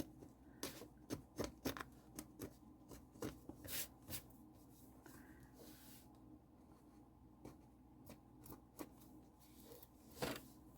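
Paper being peeled and picked off a glued book cover: faint, irregular scratches and small clicks, with a louder rustle near the end.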